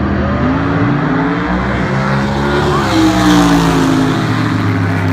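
Drag-race cars running at full throttle down the strip. Their engine pitch climbs, drops back and climbs again with each upshift, loudest about three seconds in as they pass the crowd, then falls away slightly.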